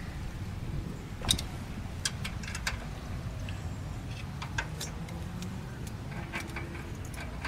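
Scattered small metallic clicks and taps of a wrench and screwdriver working a rocker-arm valve adjuster screw and locknut while the valve lash is set, the sharpest click about a second in. A steady low rumble underlies it.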